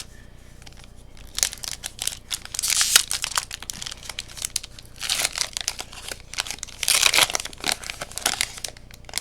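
Foil wrapper of a Pokémon card booster pack being torn open and crinkled by hand, in several crackling bunches after a quiet first second or so.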